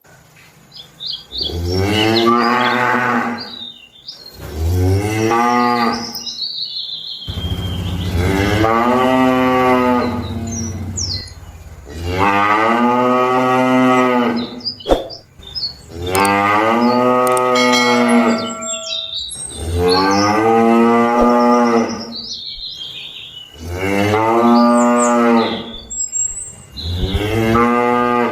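Cattle mooing: a series of about eight long, loud lows, each lasting two to three seconds, one after another with short pauses between.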